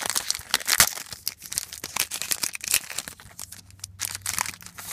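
A trading-card pack wrapper being torn open and crinkled by hand: a dense run of crackles that thins out after about three seconds.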